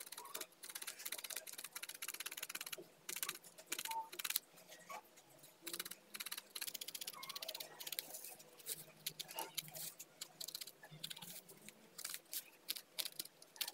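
Felting needle stabbing wool into a foam pad, a rapid run of soft, scratchy pokes in bursts with short pauses, as the wool is felted down.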